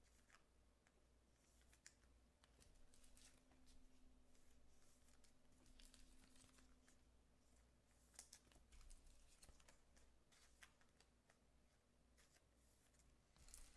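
Near silence with faint, scattered clicks and rustles of trading cards being handled and sorted.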